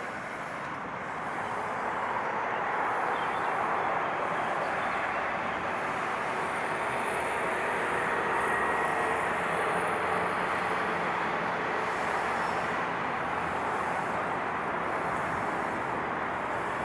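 Steady rushing noise of passing vehicles, swelling over the first couple of seconds and then holding level.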